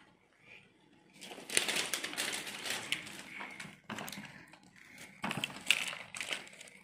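Rustling and crinkling of toy packaging being handled, starting about a second in, followed by scattered light clicks and knocks of small plastic toy pieces.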